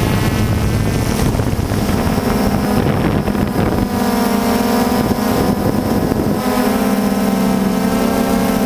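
DJI Phantom II quadcopter's brushless motors and propellers whirring in flight, a steady drone whose pitch shifts a couple of times as the motor speeds change, with wind buffeting the microphone.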